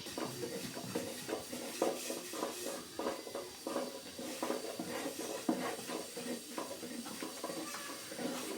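Light, irregular clatter and tapping of cooking utensils being handled during bread baking, several small knocks a second.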